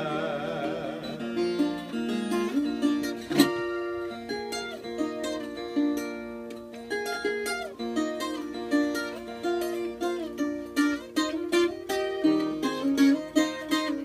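Viola caipira, the Brazilian ten-string folk guitar, playing a plucked solo interlude of a moda de viola, with one sharp accented strum about three seconds in. The last held sung note fades out in the first second.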